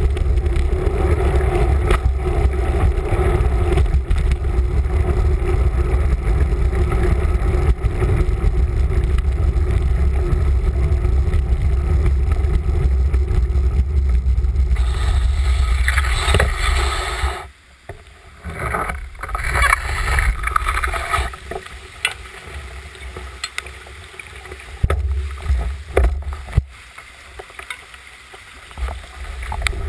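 Rush of a swollen, flooding river, with a heavy low rumble over it; the rumble drops away sharply a little past halfway, leaving a quieter, uneven rush.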